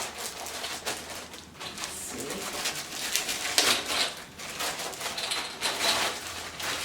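Paper documents and packaging rustling and crinkling as they are handled and leafed through, in repeated short bursts.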